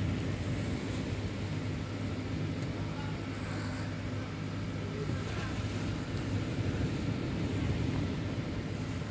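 A steady low mechanical hum over a constant background rumble.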